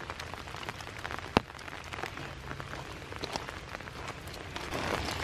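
Steady rain falling, a wash of noise dotted with small drop ticks and one sharper tap about a second and a half in, growing a little louder near the end.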